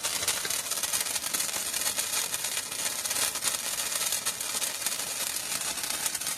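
A lit handheld firework burning steadily, giving a continuous hiss with many small crackles as it throws sparks.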